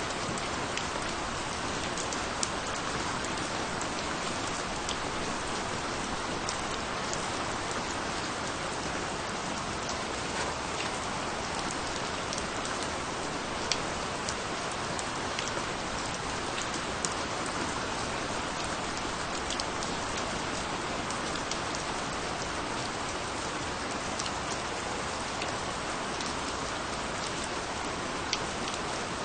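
Steady rain falling on a surface, a continuous patter with scattered individual drop ticks.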